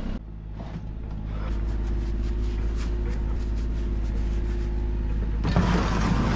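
An engine idling steadily with a low, even hum, with a few light taps. Near the end a loud burst of rustling and handling noise starts close by as gloved hands rummage among gear.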